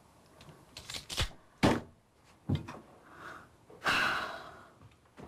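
Several soft knocks and thumps in a small room, then a hiss lasting about half a second near the end.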